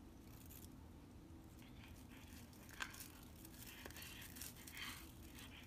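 A cat chewing on a toothbrush: faint, scratchy scraping of the bristles in short bursts, with one sharp click a little before three seconds in.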